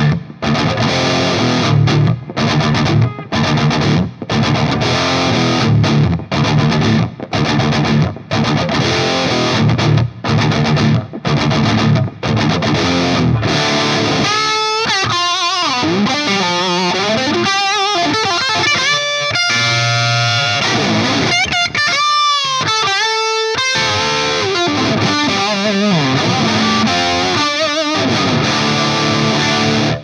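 Distorted electric guitar, a 2006 Gibson Les Paul '58 Reissue with Burstbucker pickups played through a Mesa Dual Rectifier Roadster on channel 4 in Modern mode, heard through a Celestion Vintage 30 4x12 cabinet impulse with reverb. For the first half it plays short chopped chords with abrupt stops between them. From about halfway it plays sustained lead notes with bends and vibrato.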